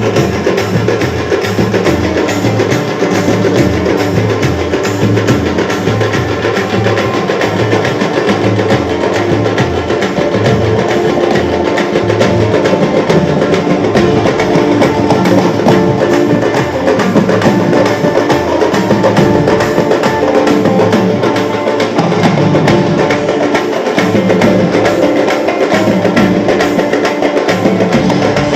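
A band playing loud, percussion-driven Chennai gana music, with a steady pounding drum beat under dense hand percussion.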